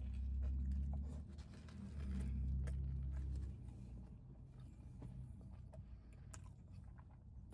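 Two long, low, closed-mouth 'mmm' hums of enjoyment while chewing a mouthful of fried chicken and donut sandwich, with faint clicks of chewing and the foil wrapper crinkling.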